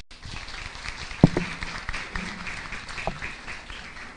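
Audience applauding in a dense, even patter of clapping, with one sharp thump about a second in.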